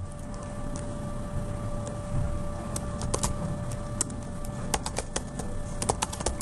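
Computer keyboard being typed on. A few scattered keystrokes come first, then a quicker run of key clicks over the last couple of seconds, with a faint steady hum underneath.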